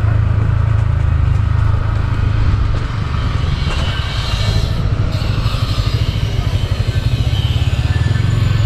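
Yamaha R15 V3 motorcycle's 155 cc single-cylinder engine running at low speed as the bike rolls slowly, a steady low hum.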